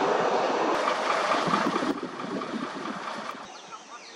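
Bus engine running close by, a loud, coarse rumble. It drops in level twice, near the middle and again near the end, where faint birdsong comes up.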